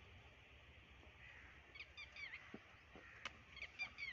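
Faint birds chirping in two short clusters of quick rising and falling notes. About three seconds in there is a single sharp crack of a cricket bat striking the ball.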